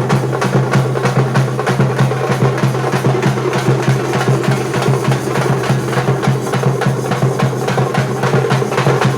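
Percussion-heavy music: fast, steady drumming with repeated sharp hits over a held low note.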